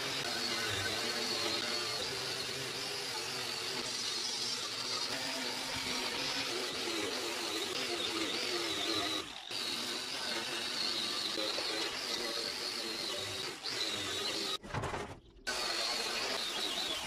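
Angle grinder with a wire cup brush running and scrubbing a lawn mower deck, stripping off old grime and coating. It is a steady, loud whirring scrape that dips briefly a couple of times and breaks off for under a second near the end.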